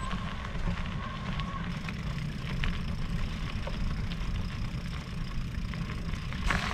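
Wind buffeting the microphone over the rolling noise of an electric mountain bike on a trail, with scattered small clicks and ticks.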